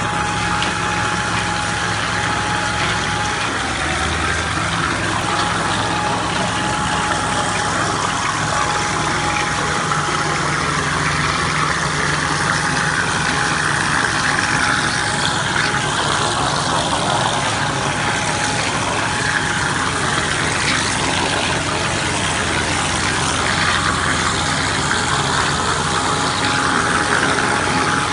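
Engine-driven pool-plastering equipment running steadily, with a steady hiss as the pebble finish is sprayed from a hose nozzle. A thin whine comes and goes over it.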